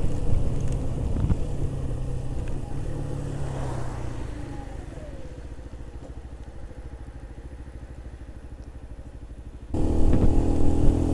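Keeway RKV 125 motorcycle's single-cylinder engine dropping off as the bike slows, then settling to a quiet, steady idle with an even low pulse. About ten seconds in, the sound abruptly turns loud again with engine and wind noise.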